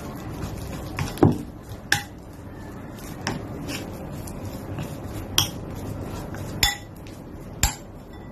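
A metal fork stirring a soft flour-and-milk dough in a bowl, scraping steadily, with about seven sharp clicks where it knocks against the bowl's side. The loudest knock comes a little over a second in.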